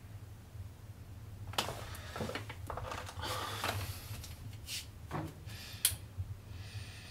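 Rustling and fumbling handling sounds in a dark room, then a sharp click about six seconds in as a bedside lamp is switched on, over a low steady hum.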